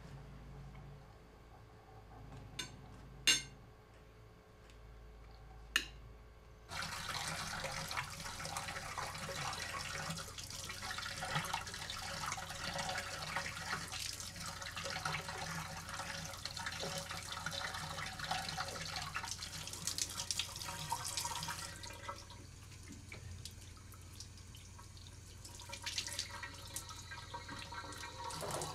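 A few short sharp clicks, then about seven seconds in a bathtub tap suddenly starts running water into the tub in a steady rush. It drops to a quieter flow about fifteen seconds later.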